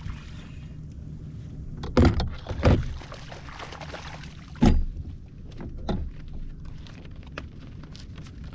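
Knocks and thumps on a kayak, several sharp ones: two about two seconds in, a loud one near the middle and two weaker ones just after. Under them runs a steady low rumble.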